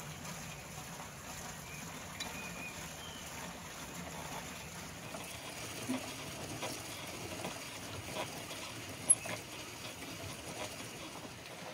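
Hand-cranked meat grinder mincing beef tripe: a steady soft squelching churn with scattered small clicks and ticks from the crank and auger, and one sharp click about nine seconds in.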